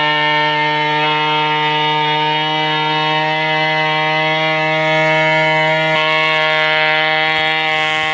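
Stihl 070 two-stroke chainsaw running at a steady high speed, holding one even pitch.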